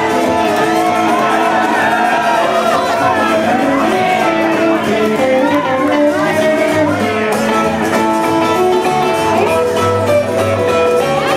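Live rockabilly played by a trio on two guitars and an upright double bass, loud and steady.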